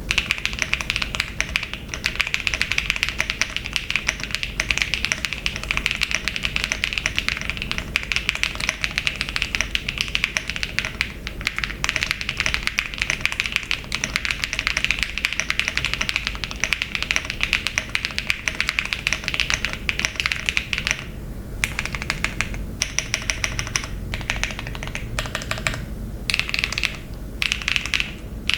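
Typing on an RC65 plateless, gasket-mounted aluminium mechanical keyboard with HMX Yogurt switches and RGB Pro keycaps: fast continuous keystrokes, thinning to slower, separate key presses about three quarters of the way through.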